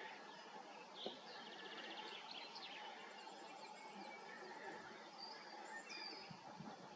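Faint birdsong: several birds chirping, with a quick trill, over a steady low hiss. A single sharp click comes about a second in.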